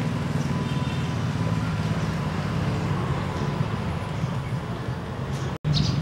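A vehicle engine idling, a steady low drone that cuts out for an instant near the end.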